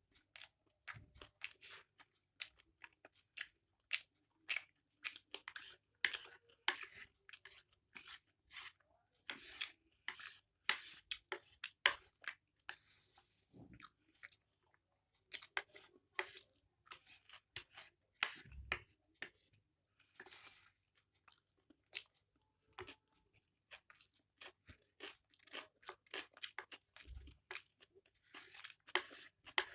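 Close-up chewing of mixed chow mein noodles: irregular wet clicks, smacks and crunches, with a few longer hissy stretches about halfway through.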